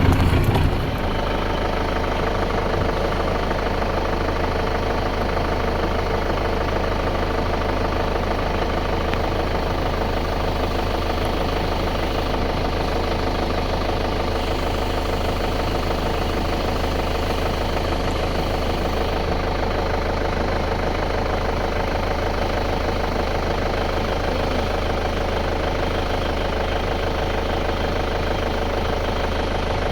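A vehicle engine running steadily: an even, unchanging hum with no revving or gear changes.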